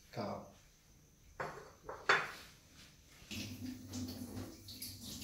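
China plates and a metal spoon being handled: a few separate clinks and knocks in the first two seconds, then a low steady hum with light clatter from about three seconds in.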